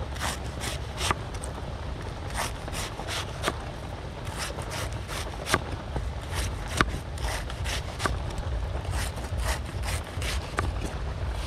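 A cleaver slicing a banana-plant trunk into thin rounds on a wooden chopping board: irregular sharp knocks, about two a second, as the blade cuts through and strikes the board, over a steady low rumble.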